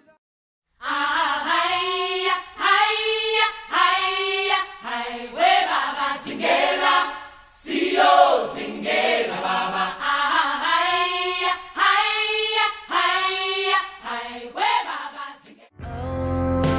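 Unaccompanied choral singing in short, held phrases, starting about a second in after a brief silence. Near the end it gives way to instrumental music with a steady accompaniment.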